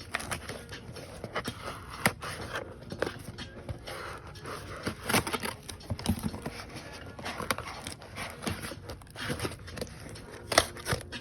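Shipping package being opened by hand: irregular rustling, crinkling, tearing and scraping of packaging, with scattered sharp clicks.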